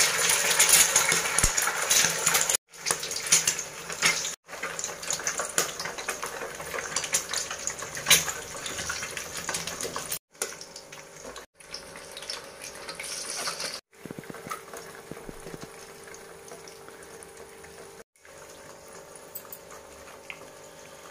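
Eggs frying in hot oil in an aluminium pot: a hissing sizzle as more eggs are cracked in. The sizzle is loudest in the first few seconds and then fades.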